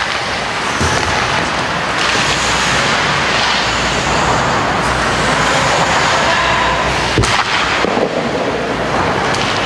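Loud, steady noise of an indoor ice hockey game heard on the camera microphone, with one sharp crack about seven seconds in.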